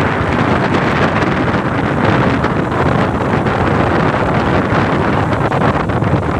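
Steady, loud wind buffeting the microphone of a vehicle moving along a road, mixed with the vehicle's running noise.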